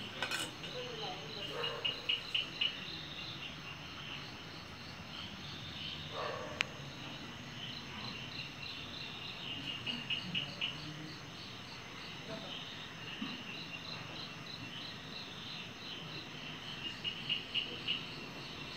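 Crickets chirping in short, rapidly pulsed trills that come every several seconds, with one sharp click about six and a half seconds in.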